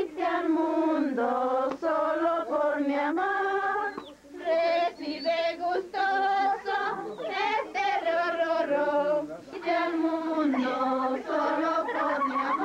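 A group of people singing a slow Christmas villancico together, in the manner of a lullaby to the Christ child. They hold long, wavering notes in phrases, with short breaks about four and nine seconds in.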